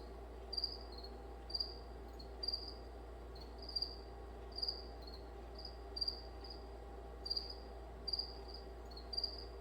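Short, high-pitched chirps repeating about once a second, a little unevenly, over a steady low hum.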